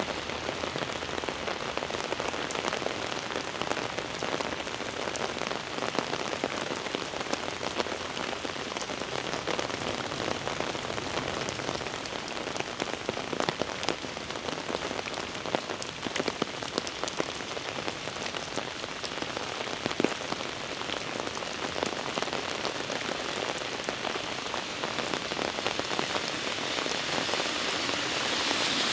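Heavy rain falling steadily: a dense hiss of rain with many sharp individual drop ticks. The hiss grows louder near the end.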